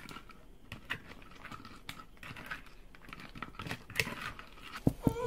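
Spatula mixing raw swimming-crab pieces in thick, sticky chili seasoning: faint wet squelches and small clicks of shell against the plate, with a couple of louder knocks near the end.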